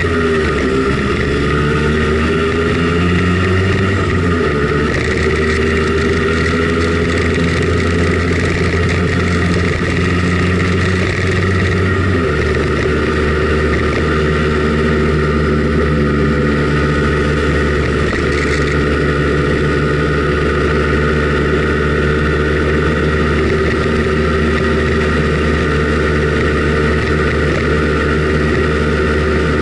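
Simson Schwalbe KR51/2 scooter's single-cylinder two-stroke engine running under way, heard from on board. The engine note shifts in steps about 4 and 12 seconds in, then holds steady.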